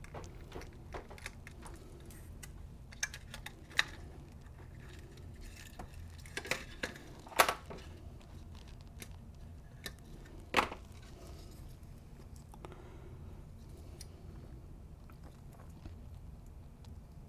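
Small hard plastic parts of a toy RC car being handled and worked on: scattered clicks and knocks, with two louder knocks about seven and ten and a half seconds in, over a low steady hum.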